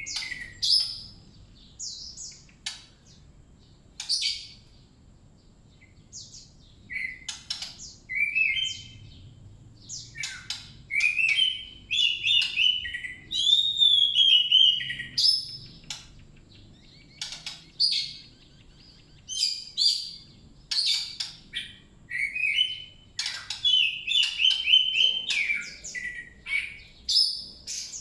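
A songbird singing: bursts of varied, quick chirps and whistled phrases, scattered and short at first and running into long busy phrases from about ten seconds in.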